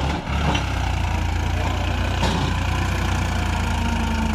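Farmtrac 45 tractor's diesel engine running steadily at a low, even speed, close to idle.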